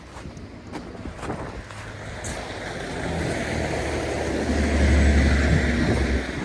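A motor vehicle driving past close by, its engine and tyre noise growing louder to a peak about five seconds in, with a deep low rumble at its closest.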